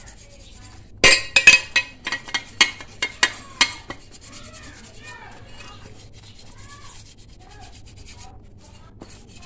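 Hand scrubbing of a Yamaha RX-King's engine cover: about ten quick, loud rubbing strokes over some three seconds, to strip paint softened by thinner. After that, quieter handling of the cover.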